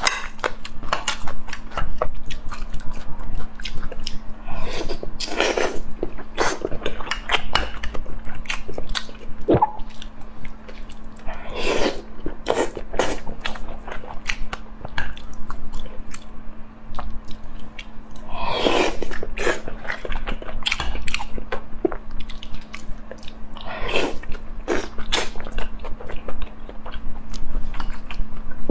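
Close-miked chewing: wet mouth clicks and smacks as food is bitten and chewed, with a few louder noisy mouth sounds now and then.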